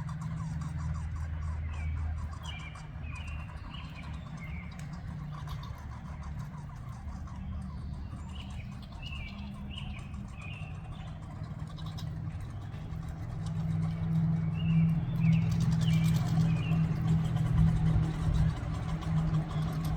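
Backyard songbird calls: three bursts of short, quick, falling chirps a few seconds apart. Under them runs a steady low hum that grows louder about two-thirds of the way through.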